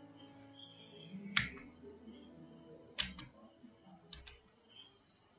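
Soft background music with a few sharp computer keyboard key clicks over it, the loudest about a second and a half in and several more around three to four seconds in.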